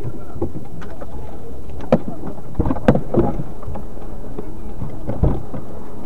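Steady rumbling noise inside a stopped car, picked up by a dashcam microphone, with a few sharp knocks about two and three seconds in and again near five seconds.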